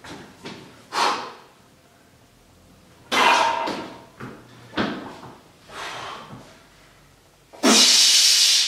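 A weightlifter breathing hard in sharp, separate gusts while setting up a heavy barbell strict curl. Near the end comes a long, loud hiss of breath forced through clenched teeth as he strains the bar up.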